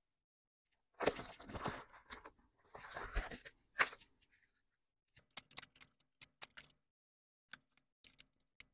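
Banknotes and a plastic zipper binder pouch being handled: faint paper-and-plastic rustling over the first few seconds, then a run of light flicks as the bills are thumbed through for counting.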